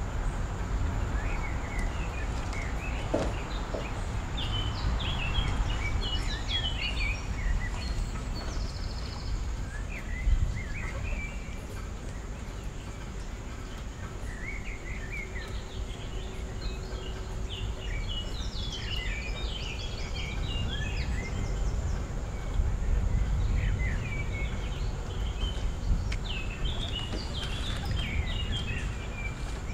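Birds chirping in scattered bursts of quick short notes, over a steady low background rumble.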